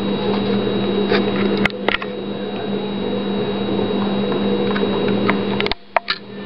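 A steady electrical hum, with a few faint clicks over it.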